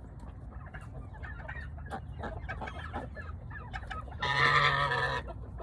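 Turkey clucking softly in short, quick calls for about four seconds. Then, near the end, comes one loud, buzzy call about a second long.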